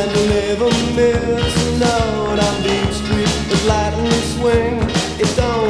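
Synth-pop recording in an instrumental stretch: a lead melody with sliding, bending notes over a steady drum beat and bass.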